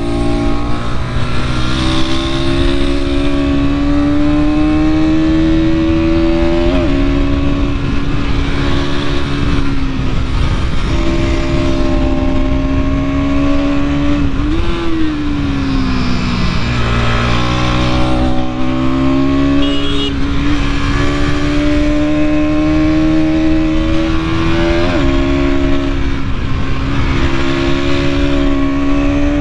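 Bajaj Pulsar NS200's single-cylinder engine running under load on the move, over wind rush. The engine note kinks briefly in pitch a couple of times, and around the middle it falls away for a second or two before climbing again.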